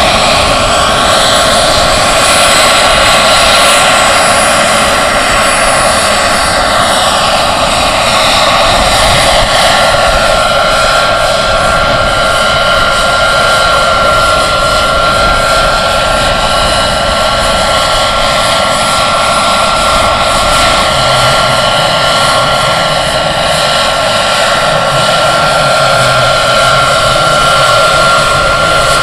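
Giant radio-controlled EC-145 scale helicopter with a model gas turbine, in flight: loud, steady turbine and rotor noise. Its pitch sweeps up and down in the first several seconds, then settles into a steady high tone.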